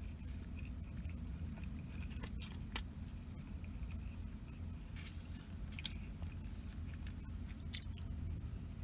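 Close-up chewing, with a plastic spoon scraping and clicking against plastic takeout containers a few times, over a steady low hum.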